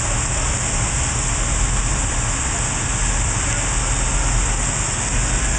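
Steady machine-shop noise: a constant hiss over a low rumble from running industrial machinery, with no distinct strokes or changes.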